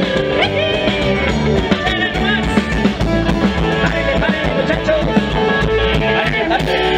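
Live band playing an instrumental passage with drums and guitar over a steady beat.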